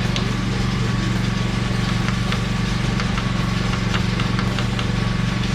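Steady motor hum, like shop machinery running, with faint light ticks several times a second.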